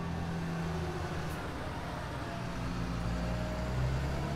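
Diesel engine of a loaded logging semi-trailer truck running as it drives past, with tyre and road noise from the dirt surface; the engine note drops a little about halfway through.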